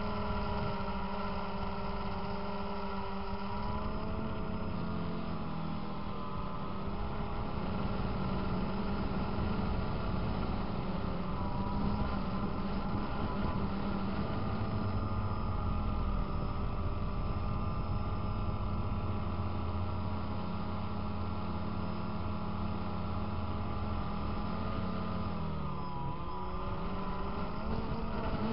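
DJI Phantom quadcopter's motors and propellers droning steadily, heard close up from the drone itself. The pitch shifts a little as the motors change speed, dipping and rising again near the end.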